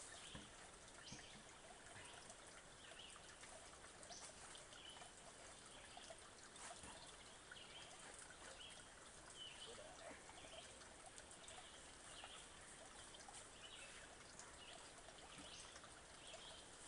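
Near silence: faint woodland ambience, a steady low hiss with scattered faint high bird chirps.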